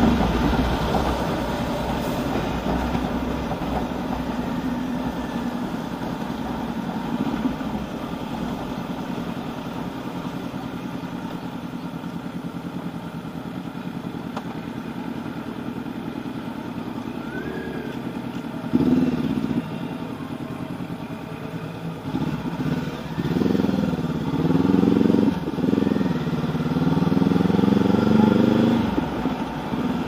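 Honda CB500X's parallel-twin engine heard from the rider's seat: easing off and running low and steady while stopped, then pulling away hard in the last few seconds, the pitch climbing and dropping back with each upshift through several gears.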